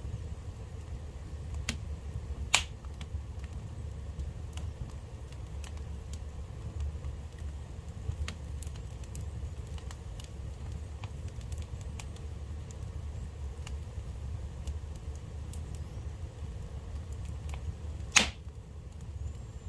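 Fire burning in a home fireplace, crackling with scattered sharp pops over a steady low rumble. Two pops stand out louder, one about two and a half seconds in and one near the end.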